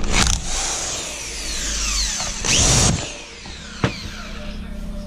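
Power tool spinning the 16mm steering wheel bolt loose: two short trigger pulls about two and a half seconds apart, the motor whine falling away after each, then a sharp click.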